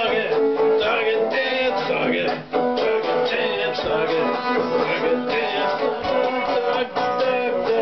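Power Guitar being played: strummed chords and picked notes over a held lower note, with a brief break in the sound about two and a half seconds in.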